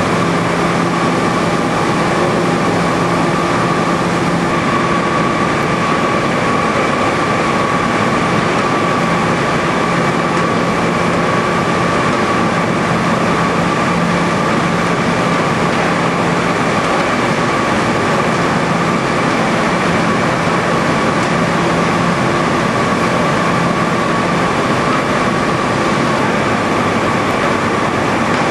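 Fruit-processing plant machinery running continuously: a steady rushing din with a constant mid-pitched whine and a low hum that comes and goes.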